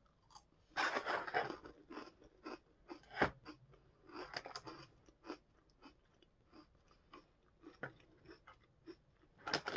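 Close crunching and chewing of crispy coconut rolls, in uneven bursts with scattered small crackles between them and a louder crackle near the end.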